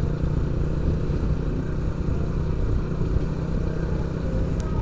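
Motorcycle engine running steadily while riding along a street, with road noise underneath. There is a brief click near the end.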